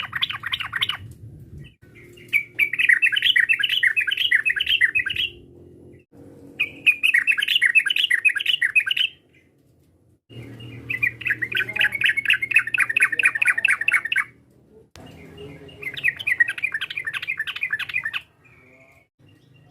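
Yellow-vented bulbul (trucukan) song: phrases of rapid, chattering notes, each lasting a few seconds, repeated five times with short pauses between them.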